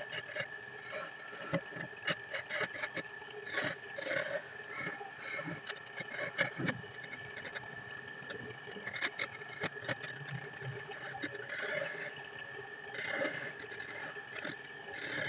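Belt-driven wood lathe running with a steady high tone while a hand-held turning tool scrapes and cuts the spinning wooden spindle in short, irregular strokes.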